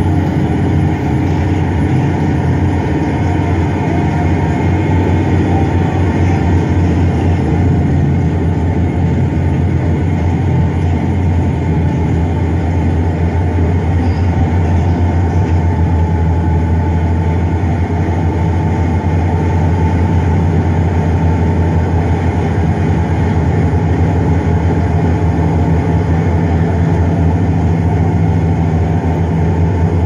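Crawler bulldozer's diesel engine running at a steady, unchanging pitch, a loud low drone.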